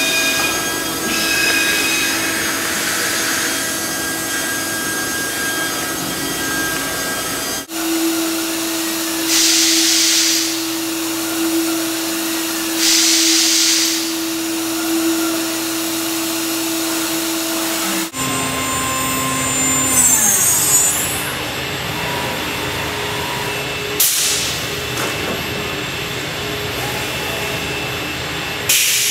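CNC router spindles running and cutting: a steady whine with several held tones that changes abruptly a few times as the machine shown changes, with short bursts of hiss along the way.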